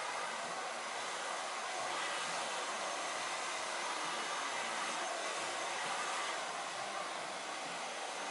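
Hand-held hair dryer blowing steadily while a stylist blow-dries long hair.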